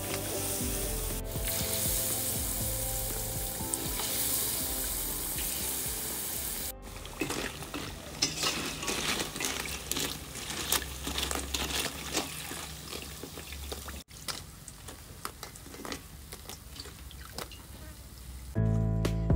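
Battered fruit pieces deep-frying in a wok of hot oil: a steady hiss at first, then, after a cut, irregular crackling and popping that grows quieter. Background music runs faintly under the frying and comes in loudly near the end.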